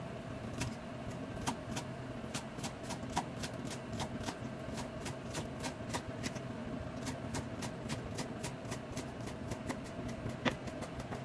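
Kitchen knife chopping green onions on a thick round wooden chopping block: a quick run of sharp knocks, about three to four a second, over a steady low hum.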